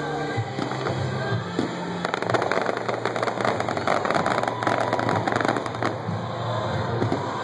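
Fireworks crackling in a dense, rapid run of small bangs from about two seconds in to about six seconds in, over music playing throughout.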